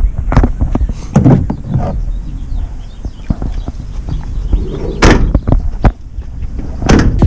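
A run of irregular knocks and thuds over low rumbling, with two louder sharp hits about five and seven seconds in.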